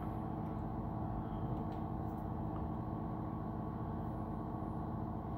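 A steady machine hum made of several even tones, with no change through the whole stretch.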